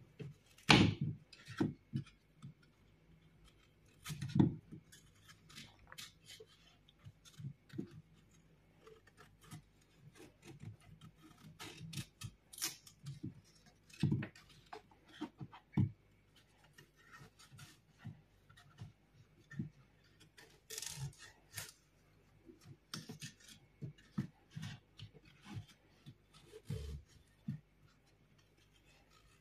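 Small kitchen knife cutting a peeled apple into pieces on a wooden cutting board: irregular crisp cuts and soft knocks of the blade on the board, the loudest knocks about a second in, at about four seconds and at about fourteen seconds.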